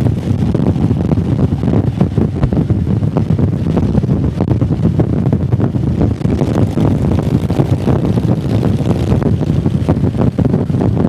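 Motorcycle riding at a steady pace, its engine running under heavy wind buffeting on the microphone.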